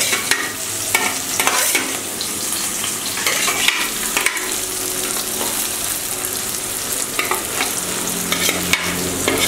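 Onions frying in hot oil in a kadhai, sizzling steadily, with a spoon scraping the pan in repeated strokes as it stirs them through cumin seeds and garlic.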